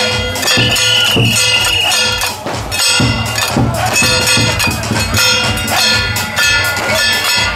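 Taiwanese temple-procession music: clanging metal percussion struck in a steady beat, with a high wavering melody line held over it.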